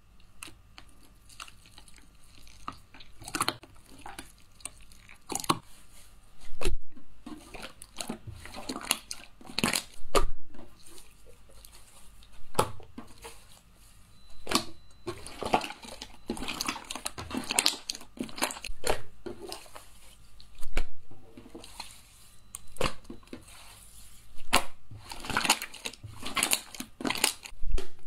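Clear, pale green slime being poured out of a cup, spread, stretched and pressed by hand: irregular sticky clicks, crackles and wet squelches, with a few louder pops.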